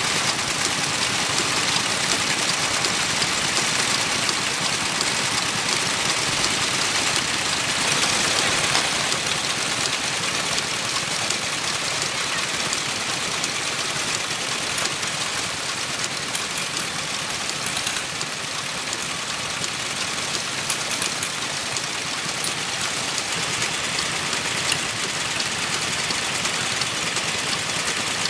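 Old Kubota ND15 horizontal water-cooled single-cylinder diesel engine (15 hp) running steadily.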